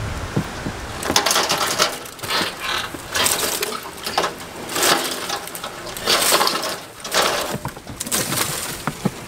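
Leafy bush branches rustling and crackling in repeated loud surges as they are pulled and dragged through grass, starting about a second in.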